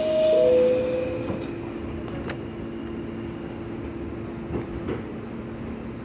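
Two-tone door chime of an R46 subway car, a higher note stepping down to a lower one. The doors slide shut with a sharp knock about two seconds in, over a steady low hum from the stopped car, with a couple more knocks near the end.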